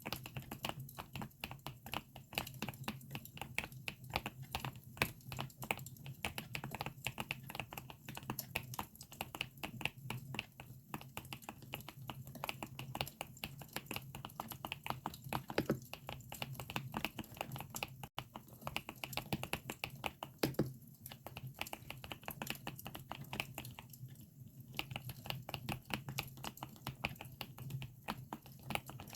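Fast typing on a GMK67 mechanical keyboard with Akko Lavender switches: a dense, irregular stream of key clacks, several a second, layered over a crackling campfire track.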